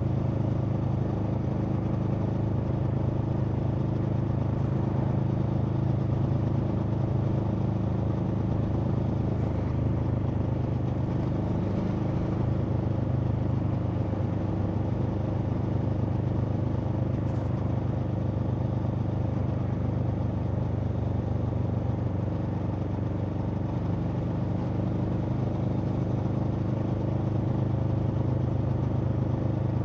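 Aprilia Tuono V4 motorcycle's V4 engine running at a nearly steady engine speed, its exhaust note holding much the same pitch with only small rises and dips.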